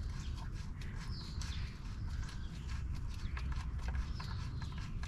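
Faint, irregular clicks and scrapes from a gloved hand spinning an oil sump drain plug out of its thread by hand, over a low steady rumble.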